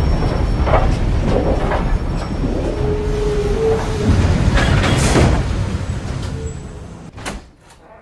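Passenger train moving along the track: a steady low rumble with clanks from the wheels and a brief squeal in the middle, fading out near the end. It is followed by one sharp knock.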